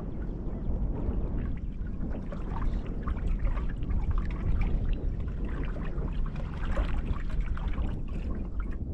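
Water splashing and lapping against a boat in irregular small splashes, over a steady low rumble of strong wind on the microphone.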